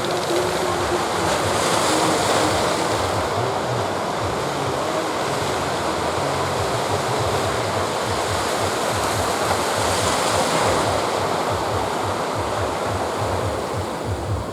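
Sea surf washing in a steady rush, swelling up twice as waves break, with wind buffeting the microphone.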